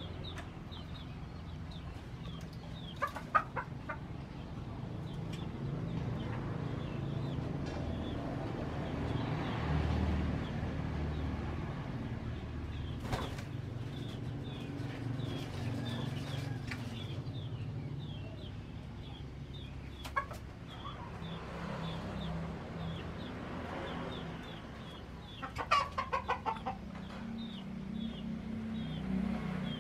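Domestic turkeys in a pen, a tom gobbling in two rapid rattling bursts, one about three seconds in and one near the end. Short high chirps repeat throughout over a low steady hum.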